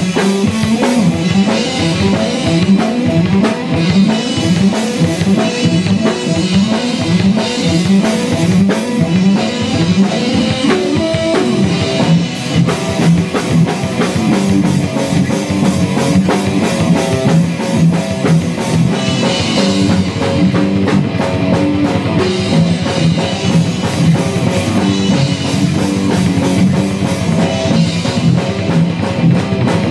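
Instrumental metal band playing live: a drum kit with a fast, busy beat and bass drum under repeating electric guitar riffs.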